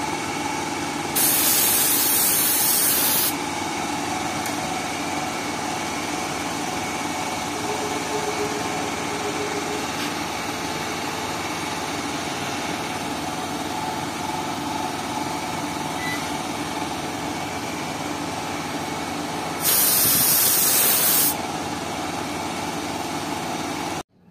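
Paint sprayer hissing in two bursts of about two seconds each, about a second in and near the end, as it lays silver paint on an aluminium motorcycle engine cover, over a steady mechanical hum; the sound cuts off suddenly just before the end.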